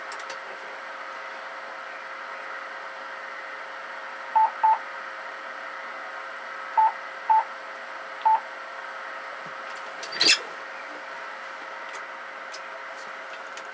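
Five short electronic beeps of the same pitch, heard as two pairs and a single between about four and eight seconds in, over the steady hiss and hum of the running linear amplifier's cooling blower. A sharp click comes about ten seconds in.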